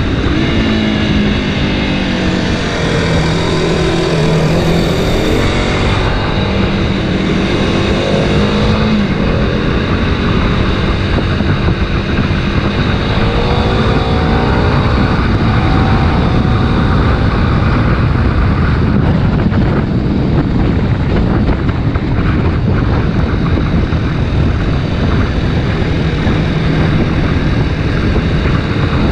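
Kawasaki Ninja 250 RR Mono's single-cylinder engine running under way, its pitch rising and falling several times as the rider revs, with heavy wind rush on the GoPro microphone.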